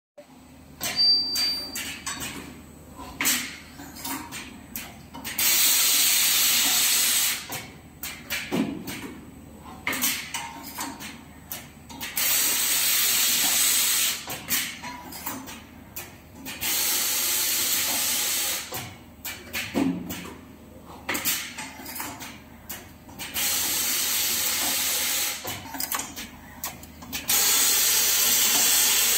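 Automatic diamond saw blade laser welding machine cycling. Five separate bursts of steady hissing, each about two seconds long, alternate with rapid clicks and knocks of the moving fixtures.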